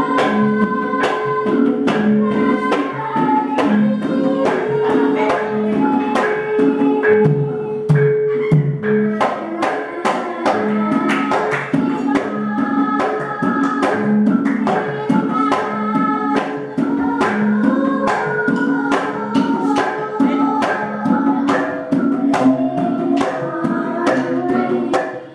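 Javanese gamelan ensemble playing a palaran: dense, evenly paced strikes of metal keyed instruments and pot-gongs with kendang drum, under a girl singing a tembang through a microphone. The voice holds one long note for about the first nine seconds, then moves on through a running melody.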